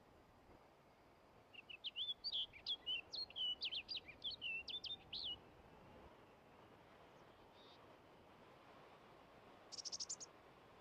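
A bird singing a fast, warbling phrase of quick sweeping notes for about four seconds, then a brief high trill of rapid notes near the end, over a faint steady hiss.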